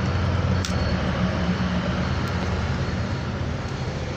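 Steady low hum of a running engine or motor, with a single faint click a little over half a second in.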